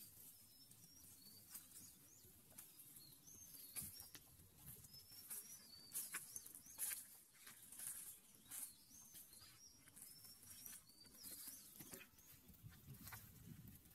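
Faint outdoor ambience of small birds chirping, many short high calls that rise and fall, with soft crackles of dry leaves underfoot.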